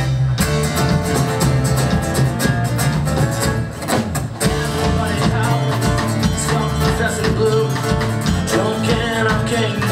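Live band playing: acoustic guitar, electric bass and a drum kit keeping a steady beat, with a man singing into a microphone from about halfway through.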